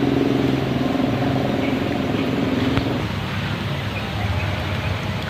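An engine running steadily, its hum fading about three seconds in.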